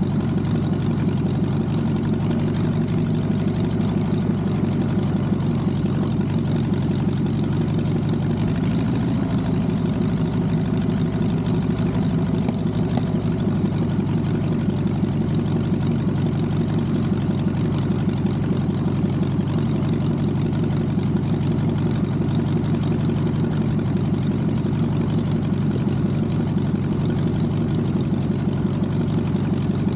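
Air-cooled 1600 cc VW flat-four aircraft conversion engine, with dual Solex carburettors and magneto ignition, idling steadily with its propeller turning, on its first run after a rebuild. About 9 seconds in the engine speed rises a little, then settles back to idle a few seconds later.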